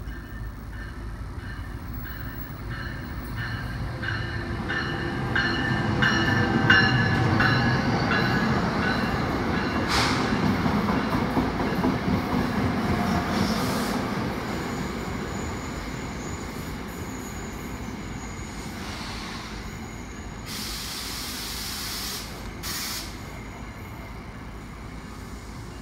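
NJ Transit commuter train arriving and rolling past: a rumble that builds to its loudest as the train comes alongside, with wheels clicking over rail joints about twice a second. A thin high brake squeal follows as it slows, and a short burst of air hiss comes about twenty seconds in.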